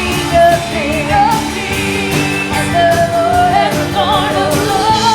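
Live gospel praise music: a band with a steady drum beat under a singer's wavering, held vocal line.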